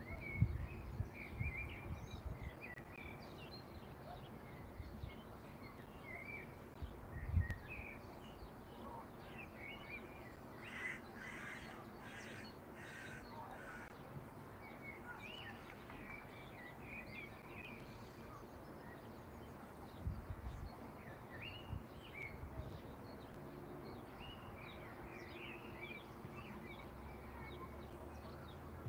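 Outdoor birds calling: small birds chirping on and off, with a run of about six harsh, caw-like calls about ten to fourteen seconds in. A few low thumps come near the start, about seven seconds in and about twenty seconds in.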